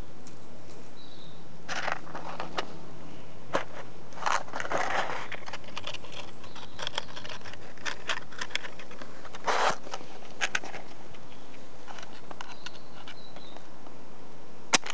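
Scattered scraping, rustling and clicking from hands handling things, with a sharp click near the end.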